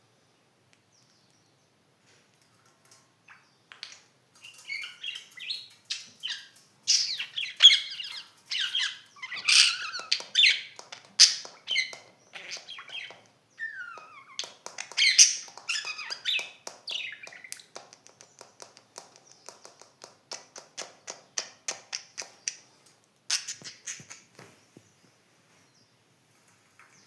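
Budgerigars chirping and warbling in a long busy run of short high calls and quick clicking chatter, which starts a few seconds in and dies away near the end.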